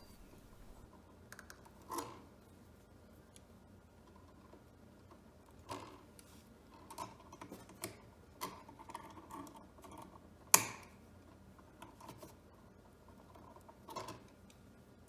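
Scattered small clicks and taps of electrical wires and tools being handled while the wires are straightened, with one sharp, louder click about ten and a half seconds in.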